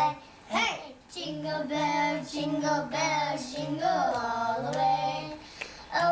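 Two young girls singing together, holding steady notes in short phrases with brief breaks between them.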